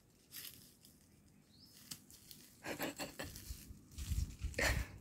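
Leaves and brush rustling and scuffing in short bursts, with a cluster of dull thumps near the end.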